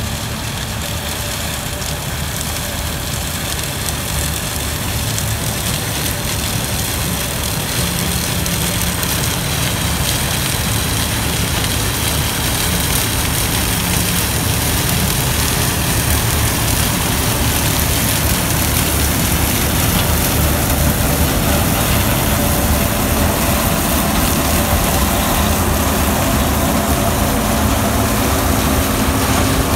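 New Holland CX6090 combine harvester running under load while harvesting sunflower, growing steadily louder as it approaches and passes close by.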